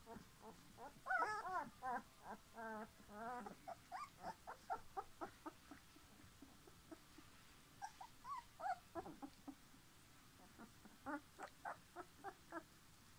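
A litter of young puppies whimpering and squeaking: many short, high-pitched calls in quick runs, some rising and falling in pitch, with a brief lull about halfway through.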